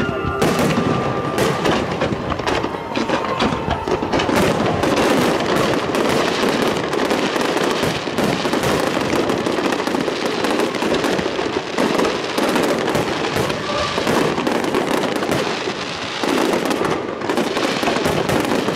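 Fireworks display: aerial shells bursting in quick succession, with a dense, continuous crackle of bangs and pops.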